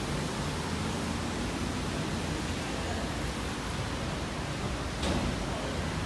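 Steady, even rushing noise, with a single brief click about five seconds in; no lift chime sounds.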